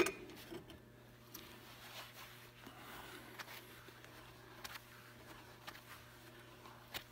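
Wrench turning a nut along a threaded steel bolt clamped in a bench vise: faint scattered clicks and scrapes of metal on metal, with a louder clack right at the start and another short click near the end.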